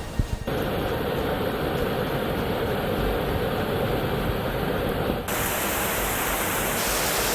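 Steady rushing of fast-moving floodwater, its sound changing abruptly about half a second in and again about five seconds in.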